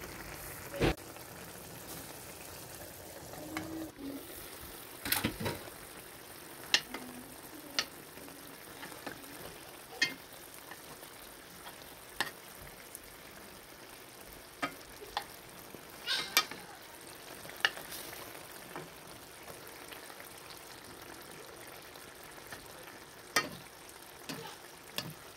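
Steady sizzle of fish steaks simmering in tomato sauce in a pan while a spoon stirs and bastes them. Scattered sharp clicks come from the spoon knocking the pan.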